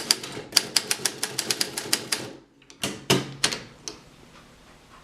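Typewriter keys typing in a quick run of sharp clacks, about four or five a second, stopping a little after two seconds; after a short pause come a few heavier, louder strokes, then only a faint hiss.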